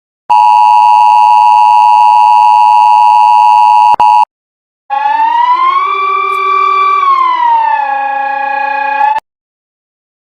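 Emergency alert alarm tones. First a steady, loud two-tone attention signal, cut off after about four seconds. After a short gap comes a siren-like tone that slowly rises, holds, falls and holds again, then stops abruptly.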